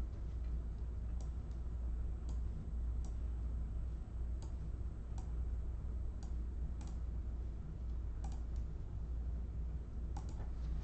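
A steady low hum with faint, irregularly spaced clicks, roughly one a second.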